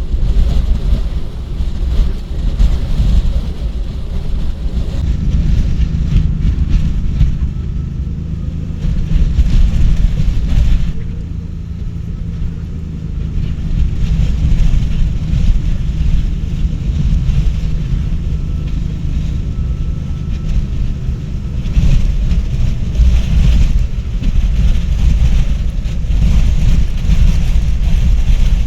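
High wind buffeting a vehicle and rumbling over the microphone, heard from inside; the noise surges and eases with the gusts, dropping off briefly before the halfway point and picking up again later.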